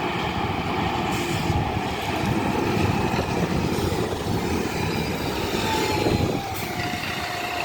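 A heavy vehicle running past close by: a steady engine rumble, with a whine that slides down in pitch after about six seconds.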